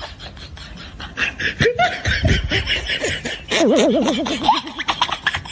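Laughter in quick pulses, with a loud wavering warble lasting about a second near the middle.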